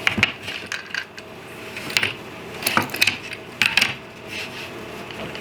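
Small metal hardware clinking: washers, nuts and bolts knocking against each other and against the jig as they are handled and fitted, in irregular sharp clinks with a short ring.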